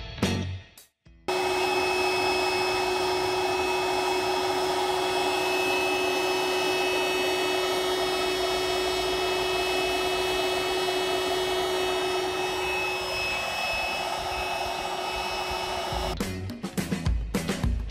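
Mercedes-Benz W211 E-Class engine bay with the secondary air pump running: a steady whistling whine over a hum, starting about a second in and stopping about 16 s in. The whistle is the sign of a failing secondary air pump that very likely needs renewing.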